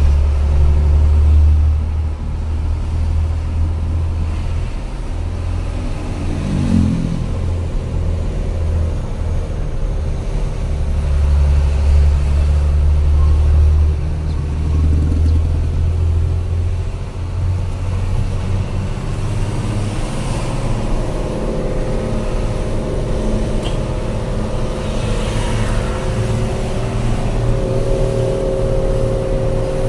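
Truck engine heard from inside the cab while driving, a deep steady drone with road noise; a higher steady engine note joins in about two-thirds of the way through.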